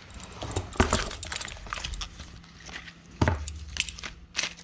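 Clicks and knocks of a Diatone Roma F5 V2 carbon-fibre quadcopter frame being handled and lifted out of its foam box insert, with two louder knocks, about a second in and about three seconds in.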